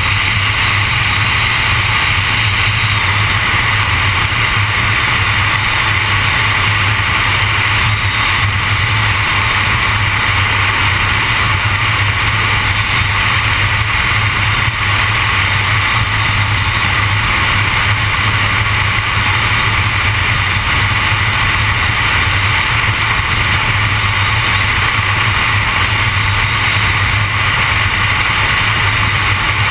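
Steady road noise of a car cruising: tyre and wind noise over a low hum, at an even level with no changes.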